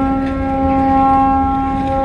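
A large ship's horn sounding one long steady blast as the ship leaves, a single held note with strong overtones.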